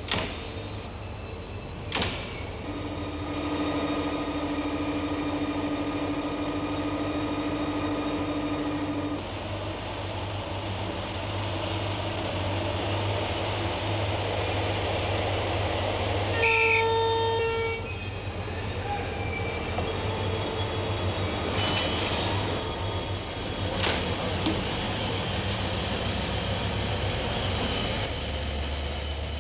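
Diesel locomotive running with a steady low hum, as it prepares to pull out. Two sharp bangs like doors slamming come at the start and about two seconds in. A long steady tone follows, and about halfway through comes a short horn blast, with a few knocks afterwards.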